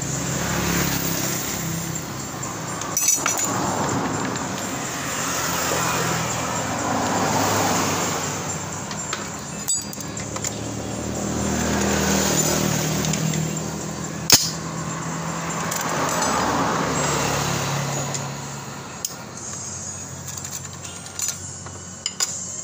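Motor vehicles running and passing, their noise swelling and fading every few seconds, with a few sharp metal clinks of a screwdriver working screws out of a scooter's plastic air-filter cover.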